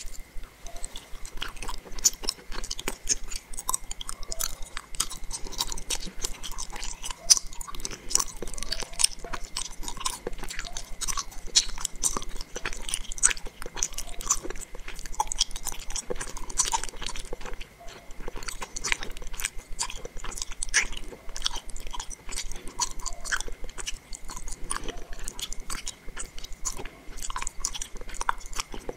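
Close-miked chewing of a soft gummy bottle candy: a dense, continuous run of small mouth clicks and squishes.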